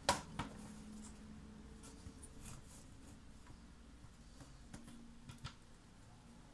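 Faint, scattered clicks and taps of small objects being handled, with the sharpest click right at the start and a short cluster about five seconds in.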